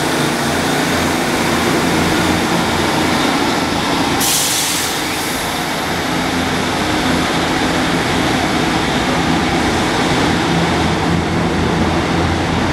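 Great Western Railway diesel multiple unit running beside the platform, its underfloor diesel engines giving a steady, loud drone, with a short burst of hiss about four seconds in.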